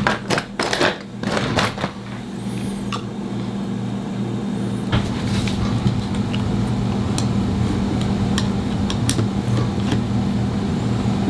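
Small sharp metal clicks and taps as an A5 clipper blade is handled and its tension loosened, thickest in the first couple of seconds, then single ticks. A steady low mechanical hum runs underneath and grows louder about halfway in.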